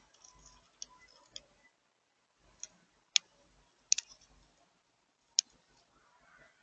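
A handful of short, sharp clicks at irregular intervals, three of them louder than the rest, over a faint background.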